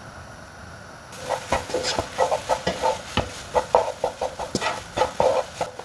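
A cooking utensil scraping and tapping against a pan while grated potato filling is mixed with the salt just added. The strokes are short and irregular, several a second, starting about a second in.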